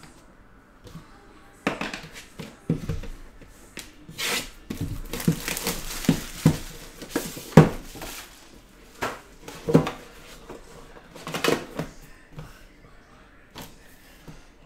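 A trading-card hobby box being unpacked and its black metal tin handled: irregular knocks, clicks and rustling, the sharpest knock about halfway through.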